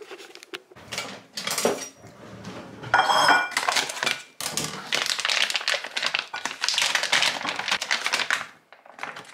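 A plastic pouch of pre-cooked chicken being cut open with scissors and handled, the plastic crinkling and rustling in quick irregular scratches. There is a short ringing sound about three seconds in, and denser rustling as the bag is tipped over a ceramic bowl.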